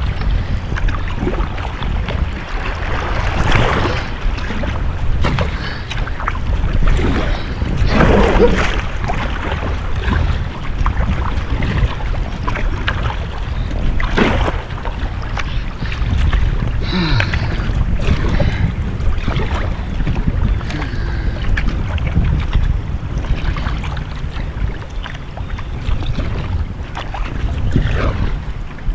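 Kayak paddle strokes splashing in river water every few seconds, over a steady low rumble of wind on the microphone.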